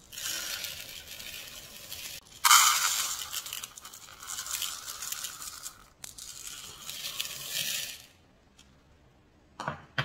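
Dry grains and lentils poured into a mixing bowl: a rattling hiss of the grains spilling in, in three pours, the second the loudest, stopping about eight seconds in.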